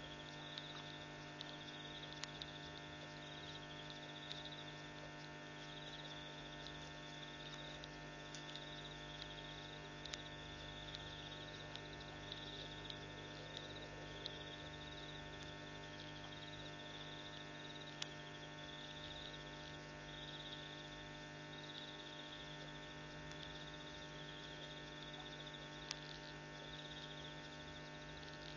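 Steady electrical mains hum, with a faint high-pitched pulsing about once a second and a few scattered faint clicks.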